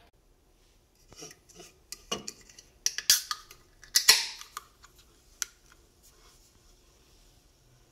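Aluminium beer can handled with a few knocks and clinks, then its pull-tab cracked open about four seconds in with a sharp snap and a short hiss.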